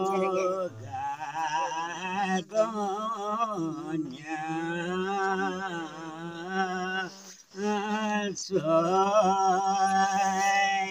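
A man singing a Nepali village folk song unaccompanied, in long held notes that waver in pitch, with brief breaks for breath.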